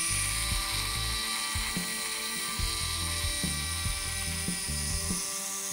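Tiny salvaged camera motor of a miniature drill-milling machine spinning its drill bit into a small workpiece: a thin, high, steady whine that sags slightly in pitch near the end. Background music plays underneath.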